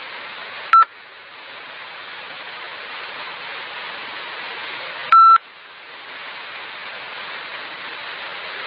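Two short electronic beeps at one pitch over a steady hiss: a very brief one near the start and a slightly longer one about five seconds in.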